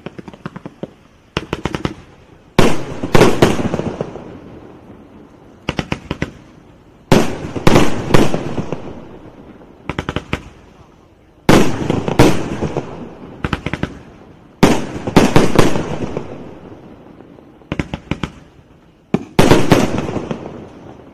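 A 308-shot firework cake firing: about five waves, each a quick run of sharp launch cracks followed by a loud burst of crackling reports that fades away, every four to five seconds.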